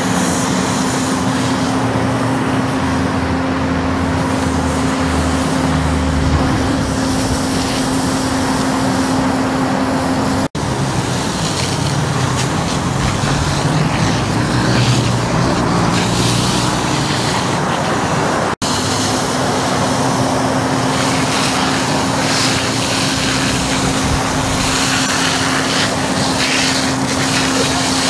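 Steady drone of a running engine mixed with freeway traffic noise, with a constant hum underneath, broken by two abrupt cuts about ten and eighteen seconds in.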